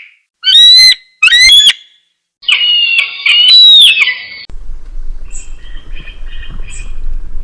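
Eagle screams: two short, shrill calls about a second apart, then a longer one. About halfway through, a different recording cuts in, with background noise and softer, shorter chirping calls.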